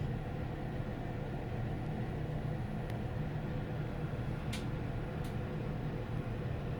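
Steady low hum and rumble inside a Hyundai Elevator LUXEN WBLX1 passenger elevator car travelling down between floors, with a few faint short ticks around the middle.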